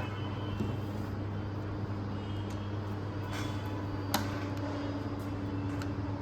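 Steady low background hum, with a few light clicks and one sharper click about four seconds in.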